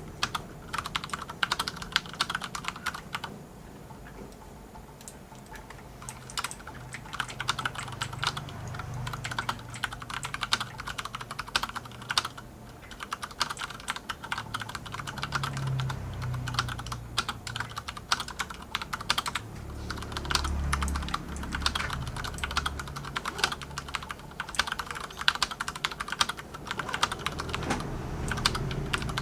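Typing on an Akko 9009 Retro mechanical keyboard with Cherry MX Brown switches: a fast, continuous patter of keystrokes, with short let-ups about four seconds in and near the middle.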